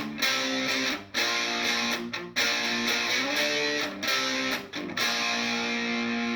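Epiphone SG Modern electric guitar on its neck pickup playing a lead phrase of held notes. The notes slide up in pitch, there are a few short breaks, and it settles on a long ringing note about five seconds in.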